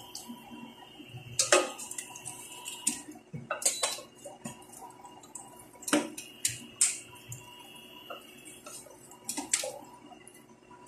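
Wooden spoon knocking and scraping against a stainless steel pot while stirring a big batch of pork chunks: a few irregular sharp clacks, spaced a second or more apart.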